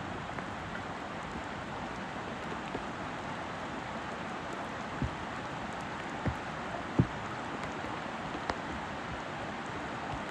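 Steady rain falling, an even hiss, with a few brief low thumps about five, six and seven seconds in.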